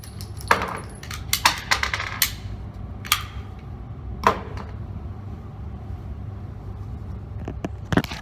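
A SIG P320 X5 pistol being handled and set down after firing: a scatter of small metallic clicks and knocks in the first couple of seconds, single sharper knocks around three and four seconds in, and two more knocks near the end, over a steady low hum.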